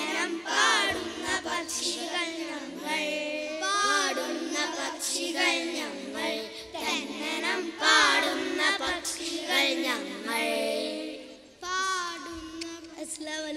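A group of young boys singing together into stage microphones.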